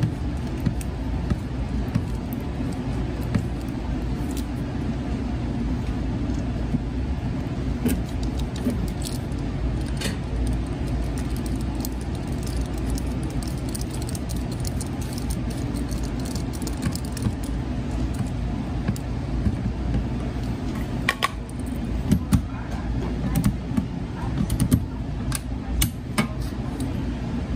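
Scattered clicks and light metallic rattles from hands and a nut driver working the steel band clamps of a rubber coupling on a PVC vent pipe, over a steady low hum. The clicks come thickest in the last third.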